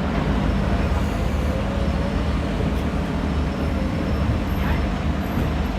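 A large engine running steadily, a low even drone with no change in speed.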